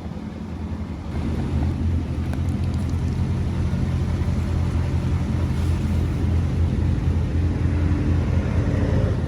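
A motor-vehicle engine idling steadily, a low even hum that grows louder about a second in.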